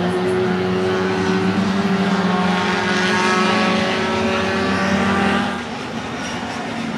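Four-cylinder engine of a Fiat 128 Coupe race car running on track, a loud, steady engine note that eases slightly in pitch, then drops in loudness about five and a half seconds in.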